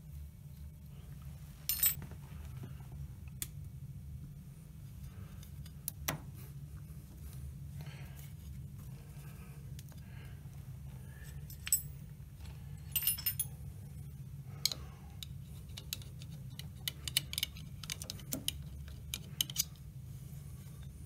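Scattered metallic clicks and clinks of a spanner and small steel parts being handled against a lathe's belt pulley and shaft, loudest about two seconds in and again around twelve to thirteen seconds, over a steady low hum.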